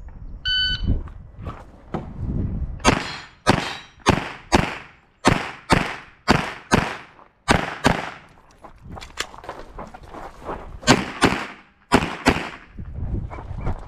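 A shot timer's electronic start beep about half a second in. From about three seconds in comes a fast string of 9mm pistol shots from a Glock 34, mostly in quick pairs, with short pauses between groups.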